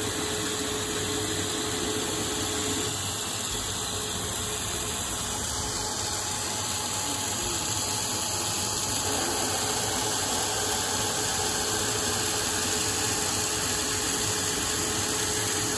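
CNC lathe running a single-point threading pass, a carbide ACME threading insert cutting a 3/4-10 ACME thread in 4140 heat-treated steel, under the steady hiss of a spray-mist coolant nozzle. The noise stays even, with a faint steady tone that drops out for a few seconds partway through.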